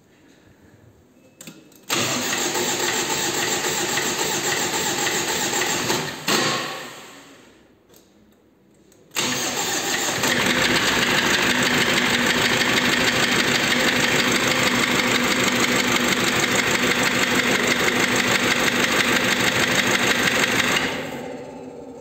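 Cummins diesel engine being started: it catches about two seconds in, runs for about four seconds, then shuts down. It is started again about nine seconds in and runs steadily with a fast, even clatter before dropping quieter near the end. The owner questions whether the engine has a knock.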